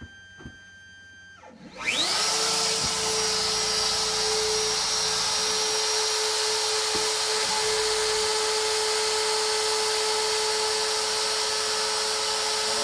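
X-Carve CNC router spindle, fitted with a 1/8" single-flute endmill, spins up about two seconds in with a quickly rising whine, then runs at a steady high speed.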